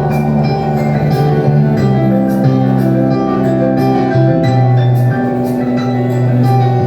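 Instrumental music: held bass notes and a melody line over light, steady percussion ticks about twice a second.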